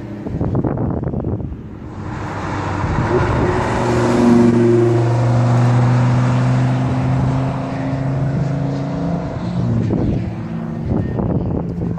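Car engine running hard at high revs as the car accelerates past, a strong steady note held for several seconds. Irregular crackling comes near the start and again near the end as the note falls away.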